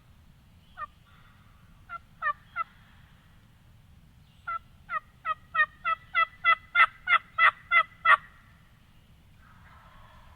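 Turkey yelping: a single yelp, then three, then a run of about a dozen evenly spaced yelps that grow louder and stop about eight seconds in.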